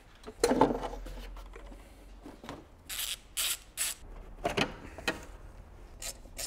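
Hands working in an engine bay around a supercharger, pulling off a rubber intake duct: scattered knocks and clicks of plastic and metal parts, with three short scraping rubs about three seconds in.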